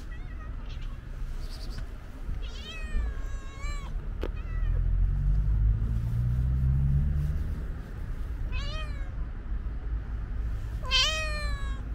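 Cat meowing three times: a long meow about three seconds in, a short one near nine seconds, and the loudest near the end. A sharp click follows the first meow, and a low rumble, slowly rising in pitch, runs through the middle.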